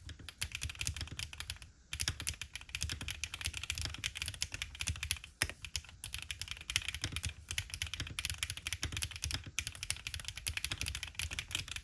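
Fast, continuous typing on a TGR x Monokei Tomo SE custom mechanical keyboard with HMK Candy Red switches and DMK keycaps, a dense run of key clacks with a short pause about two seconds in.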